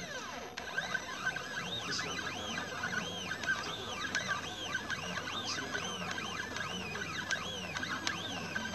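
Stepper motors of a diode laser engraver whining as the head moves, the pitch rising and falling in quick arcs over and over, over a steady high tone.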